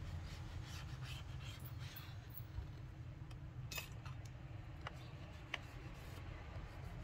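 Faint scraping and a few light clicks of small hand tools working on a laptop's display frame, over a low steady hum.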